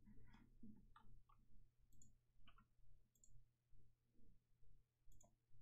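A handful of faint, irregular computer mouse clicks over a quiet room.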